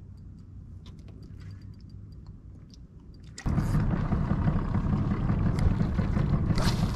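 Boat motor running steadily at trolling speed. It is a low, faint hum at first, then about three and a half seconds in it suddenly gets much louder and noisier.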